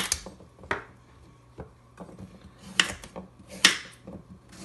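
Kitchen knife chopping raw butternut squash into cubes, the blade knocking on the countertop: about five sharp chops at uneven intervals.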